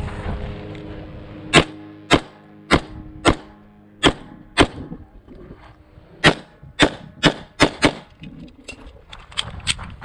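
Sig Sauer P320 pistol firing a stage string: six shots at an even pace about half a second apart, a pause of about a second and a half, then five faster shots. A few fainter pops follow near the end.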